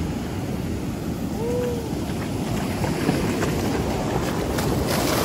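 Ocean surf breaking and foamy wash running up over a sand beach: a steady rushing noise, heaviest in the low end.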